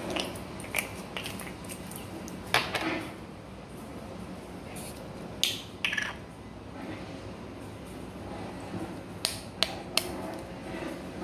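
Scattered sharp clicks and light knocks from handling a glass spice jar and its plastic cap: the cap twisted and set down on the counter, the jar shaken over the bowl. Three quick clicks come close together near the end.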